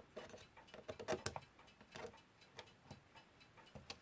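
Faint, unevenly spaced small metallic clicks from a Westclox Big Ben Style 1 alarm clock movement as its balance wheel is being fitted.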